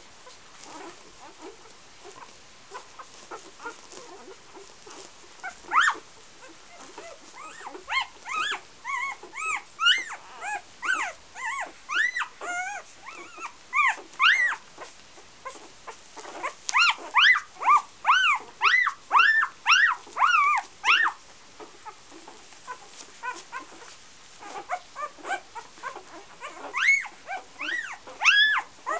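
Newborn Golden Retriever puppies squealing and whimpering: many short high squeaks, each rising and falling in pitch. They come several a second in runs, with quieter lulls between.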